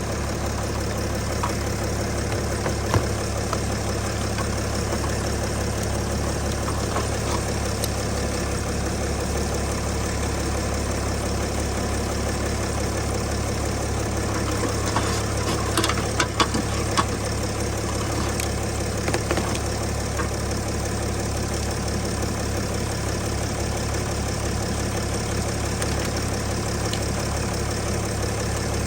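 Vehicle engine idling steadily, with a few light clicks and knocks over it, most of them about halfway through.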